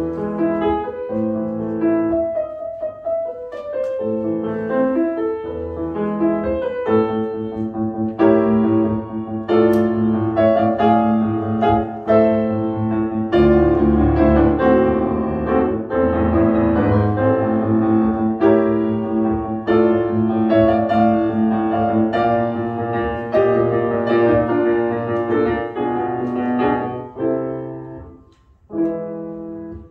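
Grand piano played solo by a child: a classical piece, notes running on continuously, with a brief break near the end before the playing starts again.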